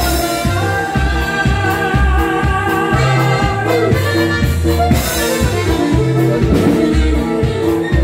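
Live norteño band music, loud and steady, with a repeating bass line under a drum beat and sustained melody notes.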